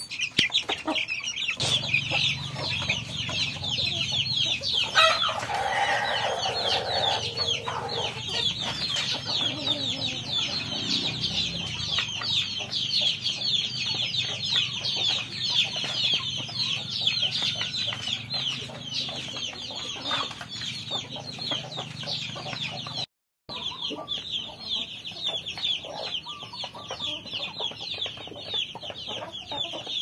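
A flock of chickens feeding: hens clucking and a dense, continuous chatter of chicks peeping. A rooster crows once, about five seconds in.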